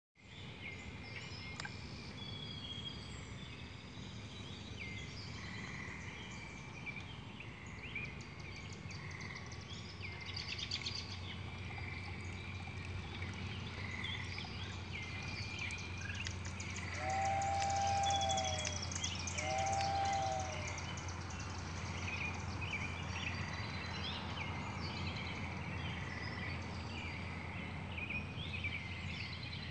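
Outdoor ambience of many birds chirping and calling, with a steady low hum underneath. Two short tones that rise and then fall come about halfway through.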